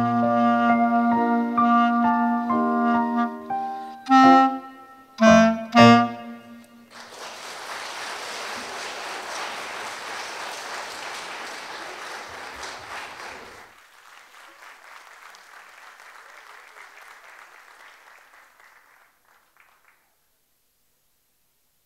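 Clarinet and piano playing the last bars of a piece, ending on a few short, loud closing notes, then audience applause starting about seven seconds in, dropping to a lighter patter about halfway through and dying away.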